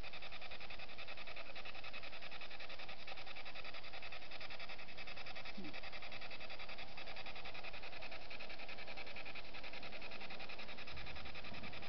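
Spirit box sweeping through radio stations: steady static hiss, rapidly chopped, with one brief faint rising chirp about halfway through.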